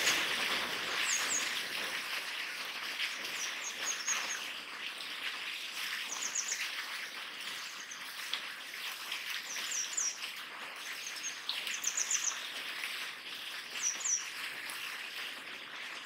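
Grey wagtail giving sharp, very high calls in quick groups of two to four notes, about eight times, over a steady background hiss.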